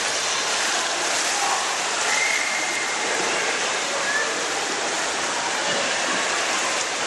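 Steady rushing water noise of an indoor swimming pool, with faint voices in the background.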